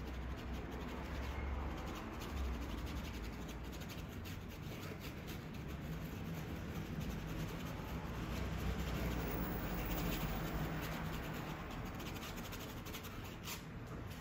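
Paintbrush bristles brushing and dabbing oil paint on a stretched canvas: soft, scratchy strokes over a low steady hum.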